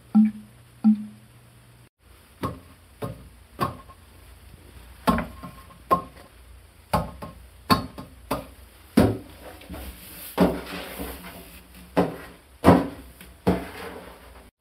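A string of irregular knocks and clunks, about a dozen, some with a short ringing tail, and a brief rushing noise about two-thirds of the way through: sound effects for a little noise coming from the toilet pipes.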